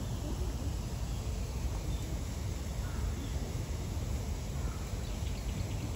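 Steady outdoor background noise, mostly a low rumble, with a few faint short bird calls about halfway through.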